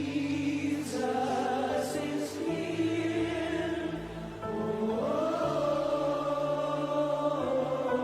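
Slow worship music: voices singing long held notes over sustained keyboard and bass chords.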